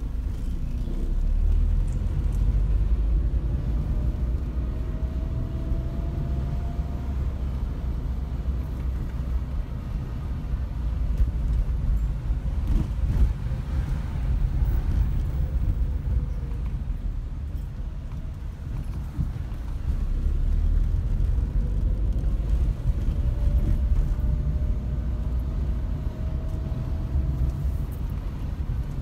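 Car being driven slowly, with a steady low rumble of engine and tyres. A faint whine rises in pitch twice as the car picks up speed.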